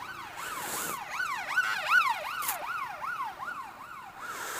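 Emergency vehicle siren in a fast yelp, its pitch sweeping up and down about two and a half times a second. It is loudest about two seconds in.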